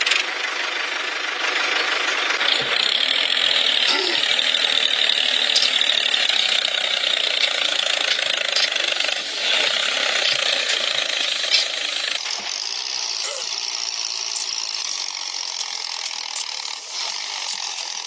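Small electric motor and gearbox of a toy tractor running steadily as it drives, with the sound changing about twelve seconds in.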